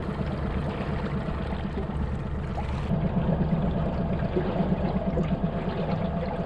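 Boat motor running steadily at trolling speed, a low even hum, with water rushing and splashing along the hull.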